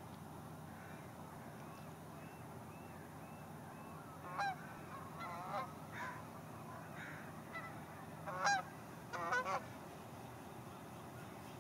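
Waterbirds calling: a few faint calls, then from about four seconds in a run of loud harsh calls in short bursts, the loudest about eight and a half seconds in, over a faint steady low hum.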